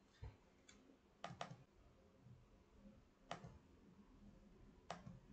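Near silence broken by about six faint, scattered clicks from a computer mouse and keyboard.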